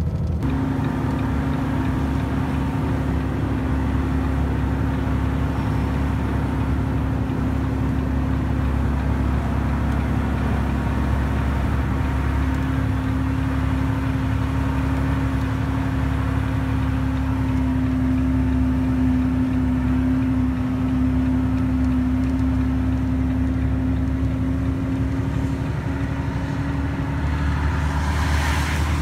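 Laden semi-truck's diesel engine running steadily while driving, heard from inside the cab. It is a constant drone whose pitch creeps slightly higher in the middle and dips a little near the end, over road noise.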